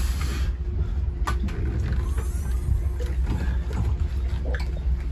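A few knocks from a boat's engine-room deck hatch being lifted and propped open, over a steady low rumble.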